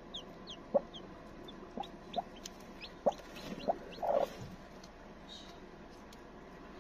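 A broody hen clucking in short low notes while her newly hatched chicks peep in quick, high, falling cheeps. Both die away about four and a half seconds in.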